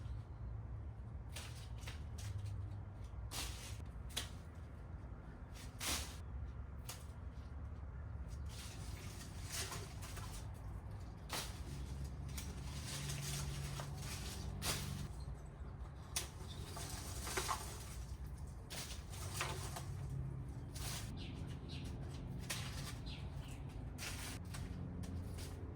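Leafy mulberry branches rustling as they are handled, with irregular sharp clicks scattered throughout, over a steady low outdoor rumble.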